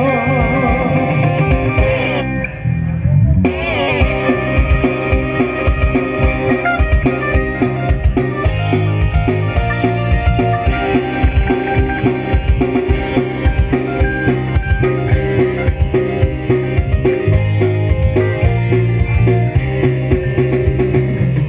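Live band amplified through an outdoor PA system: electric guitar and bass over a steady drum beat, with a woman singing at the start and the band playing on without vocals through most of the rest.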